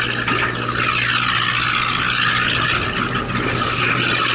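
A fishing boat's engine running with a steady low hum, under a constant rush of wind and water against the hull.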